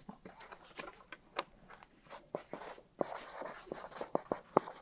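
Marker writing on a board: scratchy strokes with short sharp taps.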